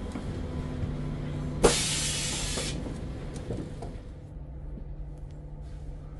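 Steady low hum of a vehicle cabin, with a sudden loud hiss starting with a click about one and a half seconds in and lasting about a second.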